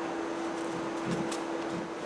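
Faint light clicks and handling noises over a steady hum.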